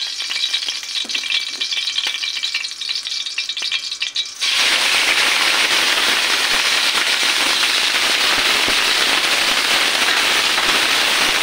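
Hot cooking oil crackling and popping in a steel wok, then about four and a half seconds in a sudden loud, steady sizzle as raw chicken pieces hit the oil and begin to fry.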